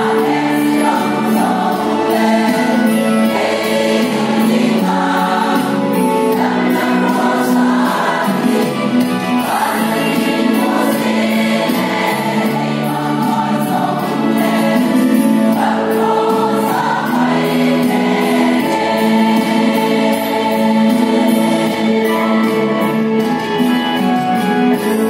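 A large women's choir singing a gospel hymn together, holding long sustained notes.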